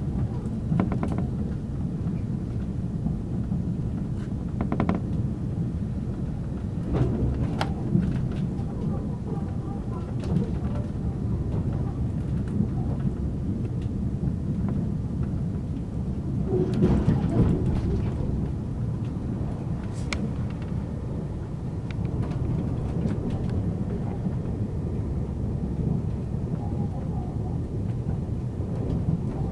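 Passenger train running at speed, heard from inside the carriage: a steady low rumble of wheels on rail, with occasional sharp knocks and a louder swell a little past halfway.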